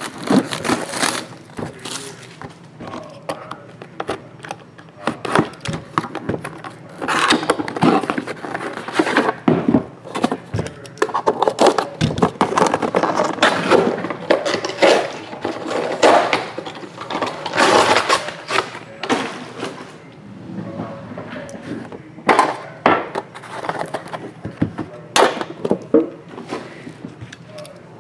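Plastic shrink wrap on a sealed Upper Deck The Cup hockey card box crinkling and tearing as hands work it, in irregular bursts with scraping and the odd knock of the box on the table.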